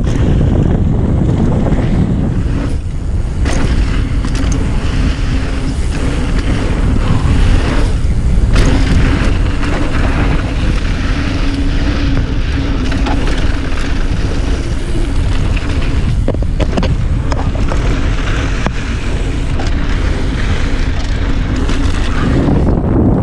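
Wind rushing over the microphone and mountain-bike tyres rolling on a dirt trail during a fast descent, with scattered knocks and rattles from bumps. A faint steady hum runs through the middle stretch.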